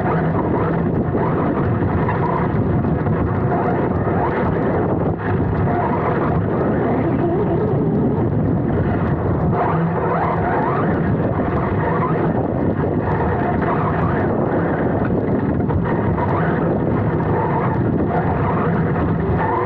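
Onboard sound of a Serpent SDX4 Evo 4wd electric RC buggy racing on grass, heard from a camera on the car: the motor and drivetrain whine rises and falls in pitch with the throttle, over steady wind noise on the microphone and rumble from the chassis.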